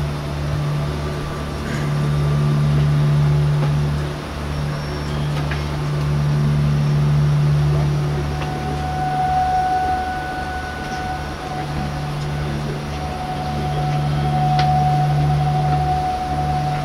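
Ambient drone from the projection-mapping show's soundtrack over loudspeakers: a steady low hum with a throbbing bass pulse beneath it, joined about halfway through by a sustained higher tone.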